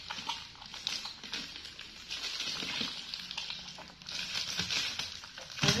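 Close-up eating and food-handling noise as a baby monkey and a toddler chew pieces of jackfruit: soft crackles, crinkles and small mouth clicks.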